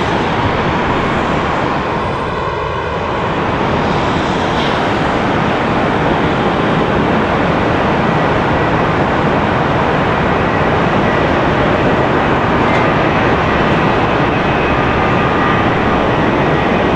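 Jet airliner's engines giving a loud, steady rush of noise, with a brief swirling, phasing quality about two seconds in as the aircraft moves past.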